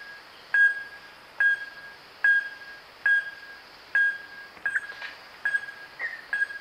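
Wahlberg's epauletted fruit bat calling: a steady series of short, sharp pinging notes, each held briefly, repeating a little faster than once a second. A few extra notes overlap around two-thirds of the way through.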